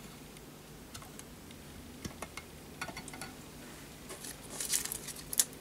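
Light scattered metal clicks and taps from a small brass boiler ball being hung on the arms of a brass Hero steam engine stand and handled, with a brief cluster of louder clicks near the end.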